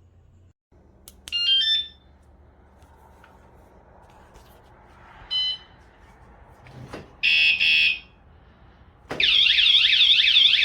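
Wsdcam wireless vibration-sensor motorcycle alarm: a quick series of stepped chirps, a single short beep a few seconds later, then two loud beeps. About a second after those, the full siren goes off, loud and warbling rapidly up and down: the alarm has been triggered.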